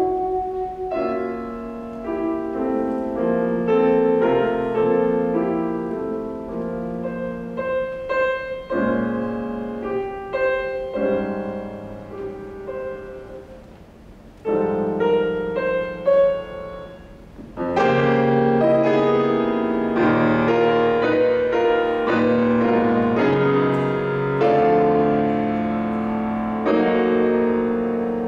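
Piano playing a classical passage of chords and moving lines. It grows softer toward the middle, then breaks into a louder, fuller passage about two-thirds of the way through.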